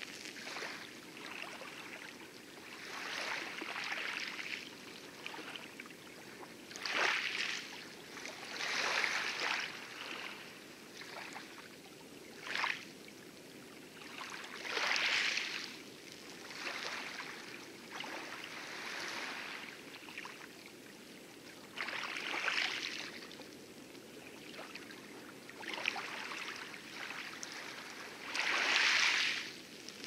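Water splashing and rushing around a small wooden-style rowboat being rowed, a splashy surge every two to three seconds with the oar strokes over a low steady wash of light lagoon waves. The loudest splash comes near the end.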